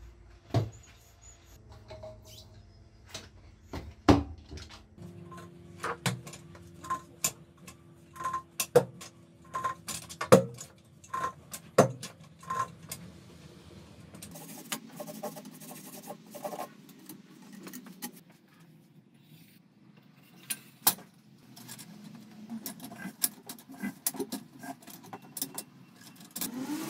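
Metal tools clinking and knocking against a motorcycle wheel and tire changer as a tire is levered onto its rim. In the middle comes a run of ringing metal taps about twice a second, and later there are stretches of scraping and rubbing.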